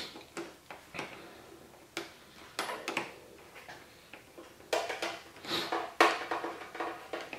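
Scattered small metallic clicks and clinks of a Phillips screwdriver working the positive terminal screw on a motorcycle battery, with a sharper clack about six seconds in.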